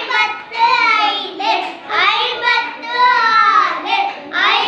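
A young child's voice reciting counting numbers aloud in a sing-song chant, drawing out each number name.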